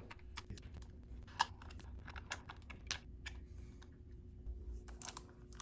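Faint, irregular light metallic clicks and taps from hand-tightening the breather assembly bolts on a Harley Twin Cam's rocker-box area, drawing out the slack. A faint steady hum runs underneath.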